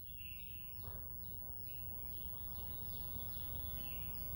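Small birds chirping over and over, quick short notes that mostly fall in pitch, over a low steady hum.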